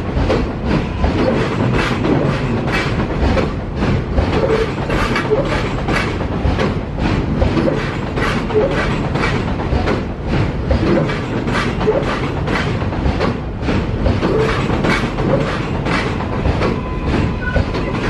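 New York City Subway 7 train of R188 cars rolling past on elevated track, its wheels clicking over the rail joints in a quick, uneven rhythm over a continuous rumble.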